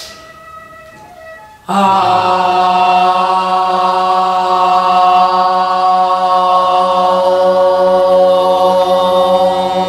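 Several voices in unison, a pansori teacher and her students, holding one long, steady 'ah' at a single pitch as a breath and vocal-resonance warm-up. It starts abruptly about two seconds in.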